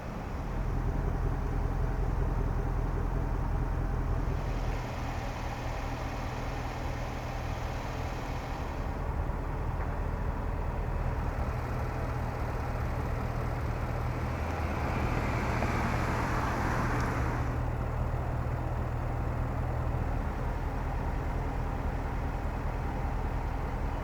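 Range Rover Sport's supercharged 5.0-litre V8 idling steadily, growing louder about half a second in. A brief rushing noise rises over it about two-thirds of the way through.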